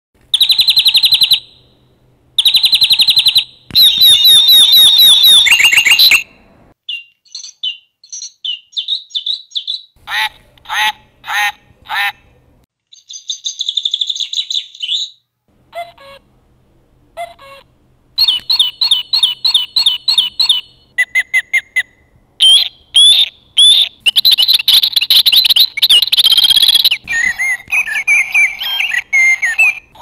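Recorded songs and calls of several different bird species played one after another from the sound modules of plush toy birds: short bursts of trills, rapid repeated notes and whistles separated by brief pauses. About halfway through comes a faint common cuckoo call.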